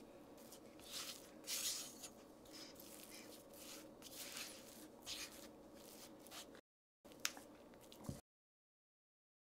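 Silicone spatula stirring and pressing cookie dough against a glass bowl: faint, soft squishing and scraping strokes about a second apart, broken by dead silence twice in the second half.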